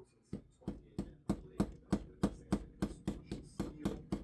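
A small hammer steadily peening the head of a pocket knife's pin, striking about three times a second to round it over.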